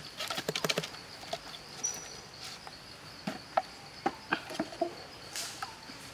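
A green bamboo tube knocking and rattling in quick succession as it is jerked about by hand, then a few scattered knocks as it is handled at the chopping block. A steady high insect drone runs underneath.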